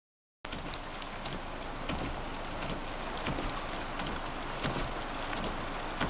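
Outdoor ambience in deep snow. After half a second of silence, a steady hiss starts suddenly, sprinkled with scattered light ticks and crackles.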